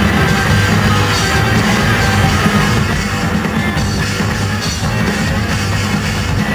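Loud rock music played live by a band with drums and guitar, going on without a break.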